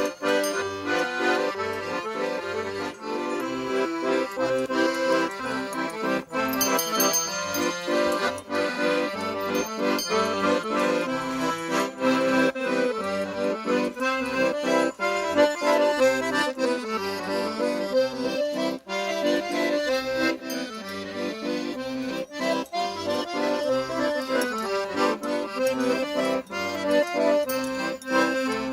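Accordion playing a tune, a melody of held reed notes over a regular, rhythmic bass accompaniment.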